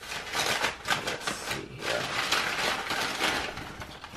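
Crumpled kraft packing paper being rustled and crinkled as it is pulled away by hand, a dense, irregular crackle that eases briefly near the end.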